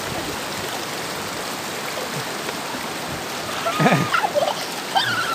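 Shallow headwater stream of the Manavgat River rushing steadily over rocks. About four seconds in, a person's voice is briefly heard over the water.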